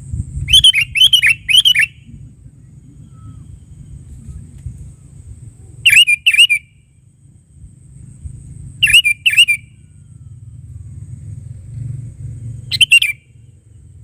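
Sooty-headed bulbul (kutilang) calling: four short, bubbly phrases of quick whistled notes, three notes in the first, then two, two and one, a few seconds apart.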